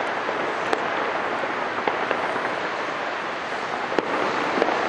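Fireworks display: a dense, continuous crackle with many sharp pops scattered through it, one stronger bang about four seconds in.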